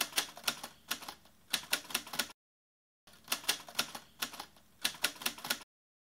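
Manual typewriter keys striking the paper through the ribbon in two quick runs of clicks, each about two and a half seconds long, separated by a short dead-silent gap.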